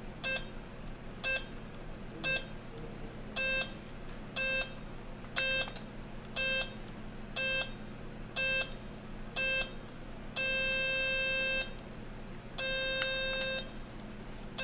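Serene Innovations VA3 travel alarm clock's audio alarm beeping: short beeps about once a second, growing louder a few seconds in, then changing near the end to longer beeps about a second long. The beeping steps up as the alarm goes on.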